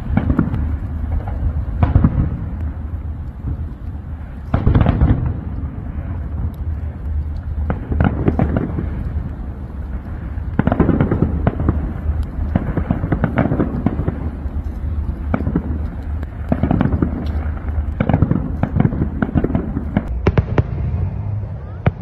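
Fireworks display: a dense run of shell bursts and crackling over a constant low rumble, with heavier bangs every few seconds.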